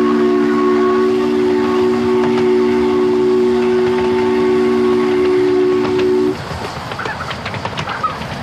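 A steam locomotive's chime whistle blows one long, steady chord of several notes, cutting off sharply about six seconds in. After it the train's running clatter carries on, with irregular clicks.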